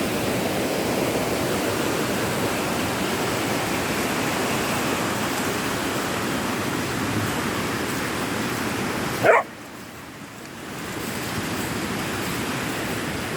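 Steady rushing of a flooded, fast-flowing creek, with a single loud dog bark about nine seconds in; the rushing drops away for a moment after the bark and then comes back.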